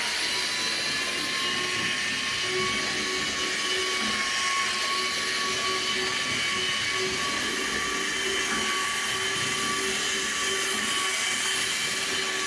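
HO-scale model train locomotive running on its track: the small electric motor gives a steady whine that rises slightly in pitch in the first second and then holds, with a haze of wheel and rail noise.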